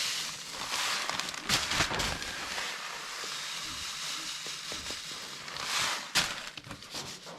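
Small seeds, canola, poured into a sample container: a hissing rattle near the start and again near the end, with a few sharp clicks and knocks from handling the containers.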